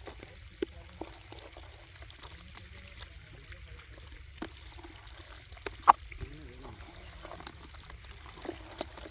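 Water trickling and splashing as fish are handled and sorted by hand, with scattered small clicks and one sharp knock about six seconds in.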